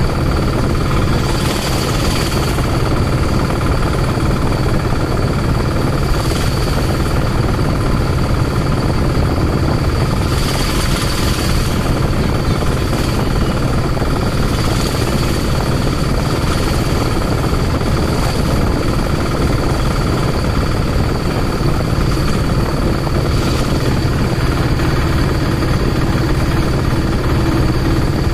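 Engine and road noise of a moving vehicle, heard from on board, steady and loud with wind rushing over the microphone; a few brief swells of hiss come and go.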